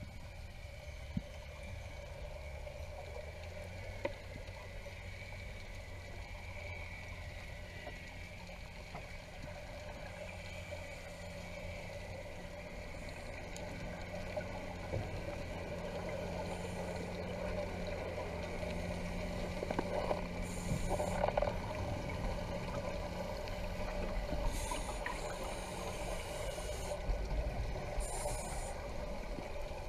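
Underwater ambience picked up through a waterproof camera housing: a steady low drone that slowly grows louder. In the second half, scuba divers' exhaled bubbles come through as short bursts of hiss.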